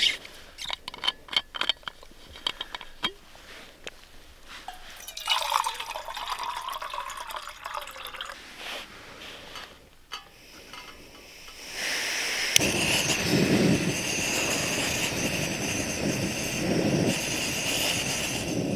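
Clinks of a metal mug and gear being handled, then water poured into the mug. About twelve seconds in, gas starts hissing from a screw-on canister camping stove, a sharp click lights it, and the burner runs with a steady rushing hiss.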